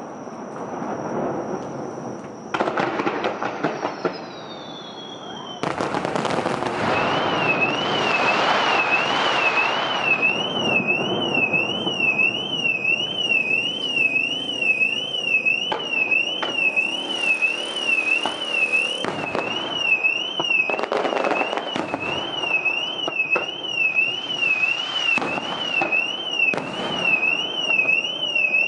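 Car alarm wailing with a fast up-and-down warble, about two sweeps a second, starting about seven seconds in, set off by the blast of the fireworks launches. Around it, sea fireworks booming and crackling in repeated bursts.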